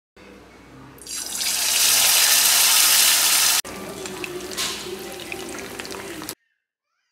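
Marinated fish pieces frying in hot oil in a pan, sizzling. The sizzle grows loud about a second in, cuts suddenly to a quieter sizzle with small crackles at about three and a half seconds, and stops abruptly near the end.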